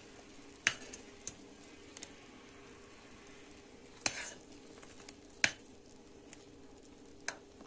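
Pot of thick pine-cone sugar syrup, foamed up at the boil, settling just off the heat with a faint steady hiss and about six short, sharp pops at irregular moments.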